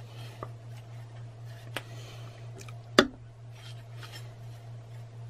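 A few light clicks and taps, the loudest about three seconds in, as a glass bowl of marinade is tipped and scraped out over a slow cooker's crock. A steady low hum runs underneath.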